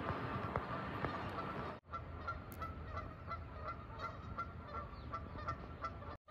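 Geese honking: a run of short calls, about three a second, over steady outdoor background noise.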